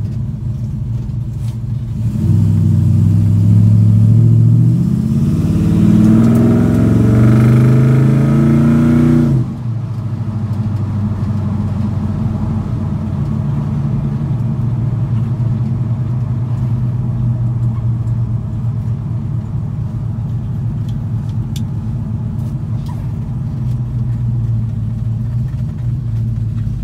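Small-block Chevy V8 in a 1977 Chevrolet C10, breathing through new headers and Flowmaster Hushpower HP-2 mufflers, heard from inside the cab. Its throaty exhaust note climbs in pitch under hard acceleration from about two seconds in, drops off sharply as the throttle is lifted about nine seconds in, then settles into a steady cruise. With these mufflers the cab stays free of drone.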